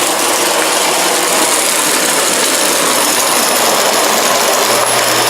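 Dyson vacuum cleaner running steadily, a rush of air with a thin high whine over it, as it picks up dog hair after being unclogged.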